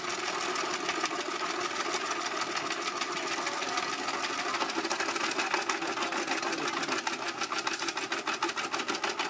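A small motor-driven machine running steadily with a hum, and rapid, even clicking that grows stronger in the second half.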